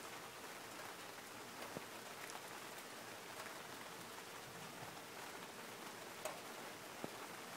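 Steady rain falling during a thunderstorm, with a few louder drops ticking now and then.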